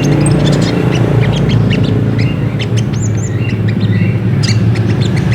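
Ruby-cheeked sunbirds (sogok ontong) calling: a busy run of short, high chirps with a few quick hooked whistles, over a steady low hum.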